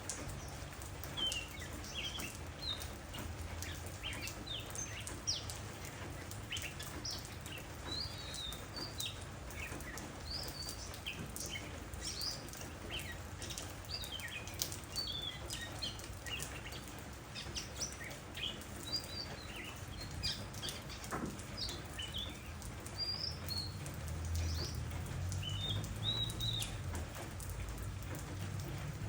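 Oriental magpie-robin singing a varied run of short, clear whistled notes, over a steady patter of rain that grows heavier near the end.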